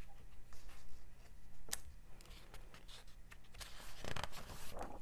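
Quiet handling of a hardcover picture book: a single tap a little under two seconds in, then the rustle of a paper page being turned near the end.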